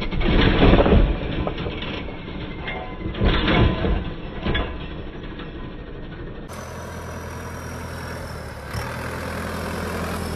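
Stunt tractor's diesel engine revving hard as its oversized rear tyres spin and dig into loose soil and gravel, with loud surges about a second in and again around three seconds. Later the engine runs steadily, with a single knock near the end.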